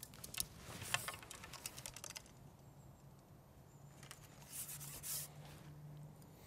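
Light clicks, taps and rustles of pole fishing tackle being handled, a quick run of clicks in the first two seconds, then a short rustle about four and a half seconds in.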